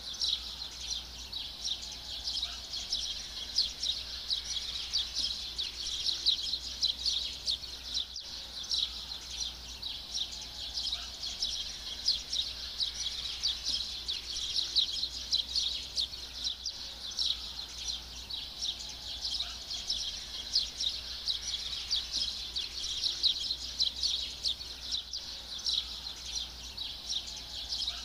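Many small birds chirping and twittering together in a dense, continuous chorus.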